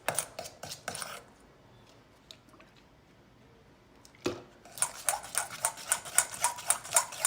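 Spoon scraping and clicking against a bowl as slime is stirred, in quick strokes. The stirring stops for about three seconds and starts again after a single sharper knock.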